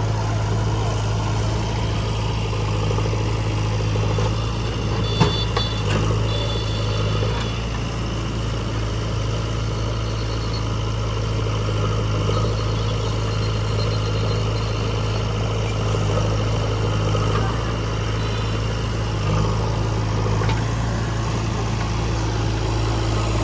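Heavy diesel engine running steadily at idle, with a sharp knock about five seconds in.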